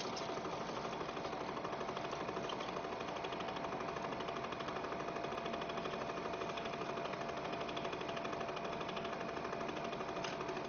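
Cine film projector running: a rapid, steady mechanical clatter of the film advancing, with a thin steady whine underneath.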